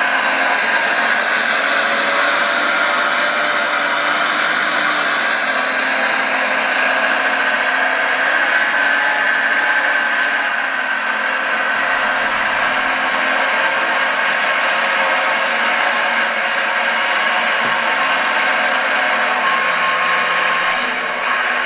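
Electronic sound module of a 1:14 Liebherr R 956 RC excavator playing a simulated diesel engine idling steadily through its onboard speaker.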